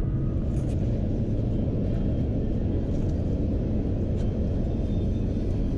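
Steady low rumble at an even level, with a few faint ticks.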